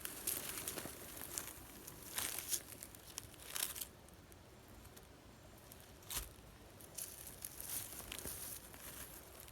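Rustling and crackling of dry leaves and brush, in short irregular bursts, with a single sharp snap about six seconds in.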